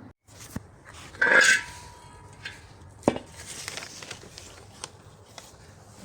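Metal clattering and scraping. A loud scrape about a second in leaves a brief ringing tone, and a sharp knock comes about three seconds in, among smaller clinks.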